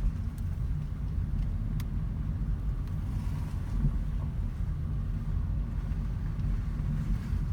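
A 2010 Mazda 3 on the move: a steady, low rumble of road and wind noise, with a faint click about two seconds in. No clear clunk stands out.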